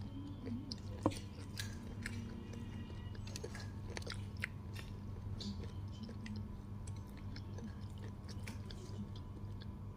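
Close-up chewing of fried chicken, bone included: wet chewing with many small crunches and clicks, and one sharp crack about a second in.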